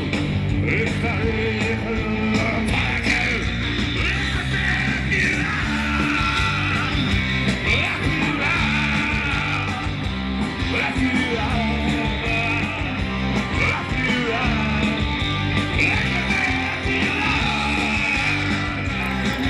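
Live rock band playing: a male lead singer over electric guitars, bass and a drum kit, keeping a steady loud beat.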